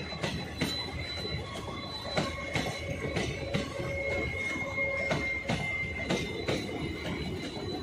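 Passenger coaches of an arriving express train rolling past, wheels knocking over rail joints with a steady rumble, and a thin high squeal that is strongest around the middle.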